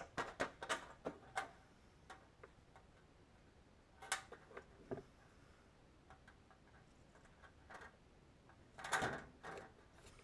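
Light sharp clicks and taps from an aluminium flap skin being handled, then a hand rivet puller being worked on a blind rivet in the skin. A louder burst lasting about half a second comes near the end.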